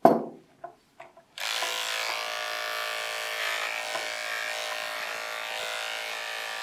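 A sharp knock at the start and a few light clicks, then a corded electric pet hair clipper switches on about a second and a half in and runs with a steady buzz, shaving a small dog's back leg.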